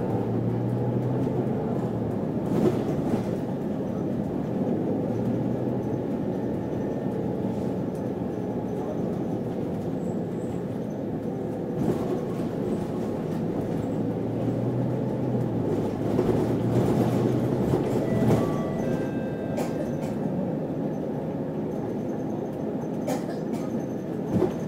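City bus running, heard from inside: steady engine and road rumble with a few sharp knocks and rattles.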